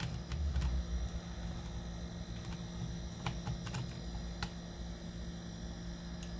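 Scattered light clicks and taps of a screwdriver and small parts being handled while the star screws holding the power cord to an angle grinder's switch are undone, over a low steady hum.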